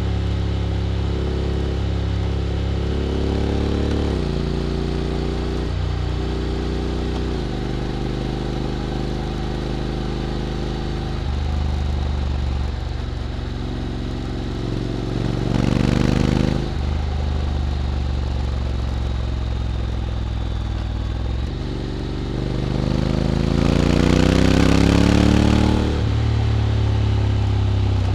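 Honda X-ADV 750's parallel-twin engine running through an SC-Project titanium slip-on exhaust at low, steady speed, with its pitch dropping a few seconds in. It revs briefly about halfway through, then climbs in pitch for several seconds near the end under acceleration, which is the loudest part.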